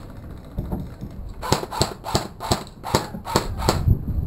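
Airsoft guns firing a quick string of about eight sharp shots, roughly three or four a second, starting about a second and a half in.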